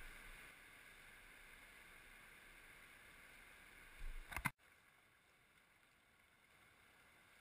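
Faint, steady rush of river water, muffled by a waterproof camera housing. There is a bump right at the start and a few knocks about four seconds in, after which the sound drops abruptly to an even quieter hiss.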